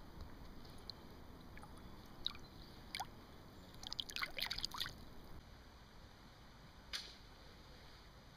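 Faint drips and small splashes of shallow river water, with a quick run of plinks about four seconds in and a few single ticks around it.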